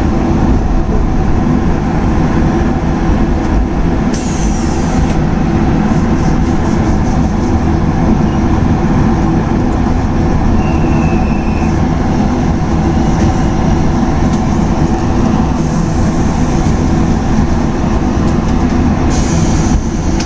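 Iyo Railway 700-series electric train running along the line, heard from inside the car just behind the driver's cab: a steady noise of traction motors and wheels on the rails.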